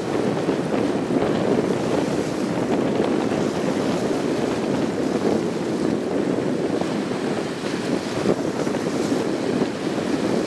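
Steady rushing wind buffeting the microphone over choppy water.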